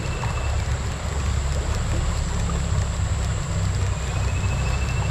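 Low, fluttering rumble of wind on the microphone over the steady rush of a shallow river.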